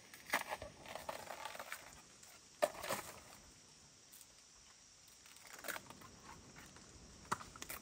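Scattered rustling and snapping of leaves and twigs, with a few sharper knocks, loudest about three seconds in.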